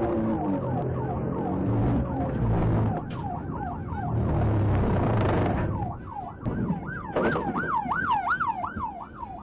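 Police cruiser's siren on yelp, a fast wail rising and falling two or three times a second, over the cruiser's engine and road noise, which die down about six seconds in as it comes to a stop.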